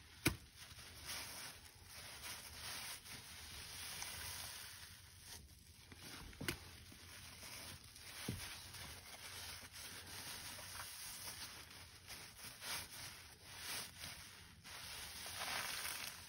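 Wet, soapy sponge being squeezed and worked by hand, a steady wet squishing and rubbing that swells and fades, with a few sharp clicks.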